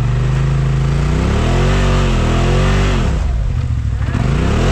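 Side-by-side UTV engine running, then revving up and dropping back twice: a longer rev in the middle and a shorter one near the end.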